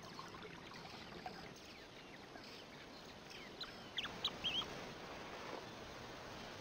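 Faint natural ambience with a low steady hiss, and a few short high-pitched bird chirps about four seconds in.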